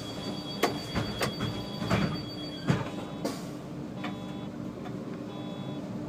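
SOR NB12 City bus standing at a stop with its engine idling, heard from the driver's cab. A steady high-pitched tone cuts off about two and a half seconds in, among four sharp knocks and a short hiss a little after three seconds.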